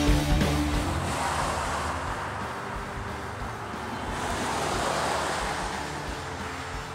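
Rock guitar music fading out in the first second, then road traffic: vehicles passing on a highway, the rushing sound swelling and fading twice.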